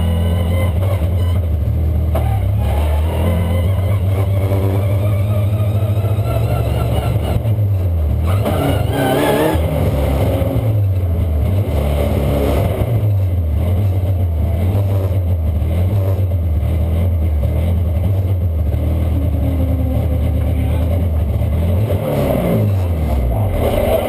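BMW E90 Super2000 race car's four-cylinder engine heard from inside the cabin, running at low revs as the car rolls slowly, with a few brief rises and falls in revs. Near the end the revs drop away sharply.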